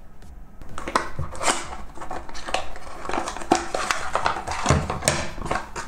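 Cardboard box insert and paper leaflet handled: rustling and scraping of card and paper with many small clicks and knocks, starting about a second in and stopping near the end.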